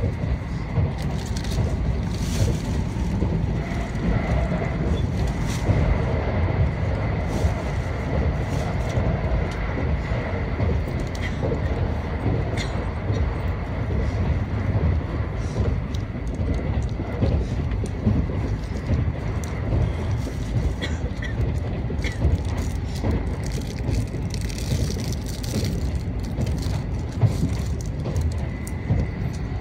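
Cabin running noise of an N700A Shinkansen train under way: a steady low rumble from the wheels and track with a faint, steady high whine and occasional light clicks.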